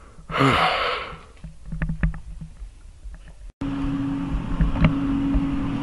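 Heat sealer running with a steady, pretty loud hum, which comes in at a cut about three and a half seconds in. Before it there is a short noisy rush and a few light clicks.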